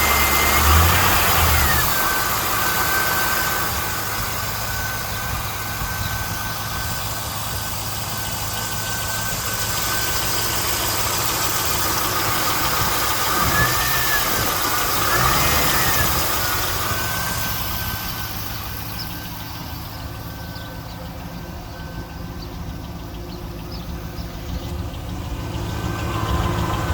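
A 2001 Camaro SS's LS1 V8 idling with a steady valvetrain ticking. The owner cannot tell whether it is lifter noise or the normal 'sewing machine' sound of this engine. The revs settle to idle in the first second or two, and there are two brief revs about halfway through.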